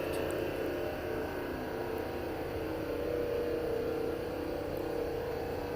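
A steady, unexplained drone of several held tones, the strongest a low hum that swells slightly midway, heard by the recorder as a strange sound unlike anything they know.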